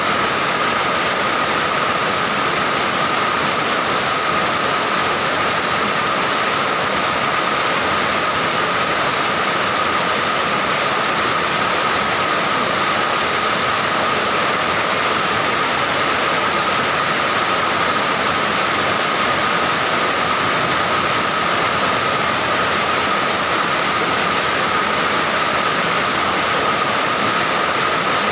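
Heavy rain falling, a loud, unbroken steady hiss.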